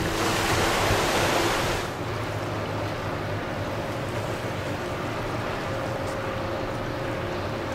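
Steady rush of wind and water with a low hum from the Super-class ferry Elwha's engines, and faint steady tones under it. A louder gust of wind on the microphone fills the first two seconds.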